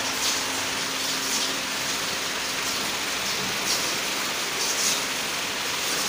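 Rotary drum heat-treatment furnace and its water quench tank running: a steady rushing, water-like hiss, with a faint steady hum in the first half and a few brief sharper hisses.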